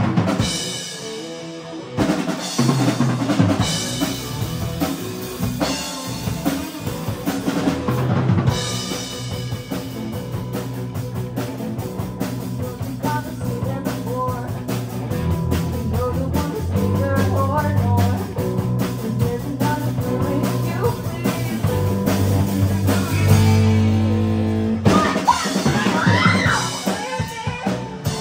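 Rock band playing live: drum kit with bass drum, snare and fills, over electric guitars and bass guitar through amps. The band stops briefly twice early on and comes back in.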